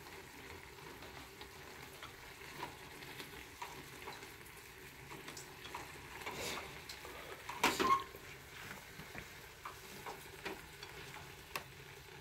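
Sliced onion and egg frying faintly in a frying pan, stirred with wooden chopsticks that click and scrape against the pan. Two louder knocks come about six and a half and eight seconds in.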